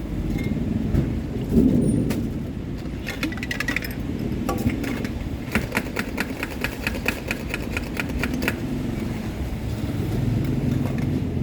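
A motorbike engine running steadily, with two runs of rapid clinking of ice and utensils against a cup, about three seconds in and again from about five and a half seconds.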